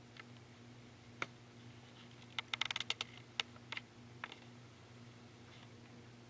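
Irregular sharp clicks: one a little over a second in, a quick run of them around two and a half seconds in, then a few single ones, over a steady low electrical hum.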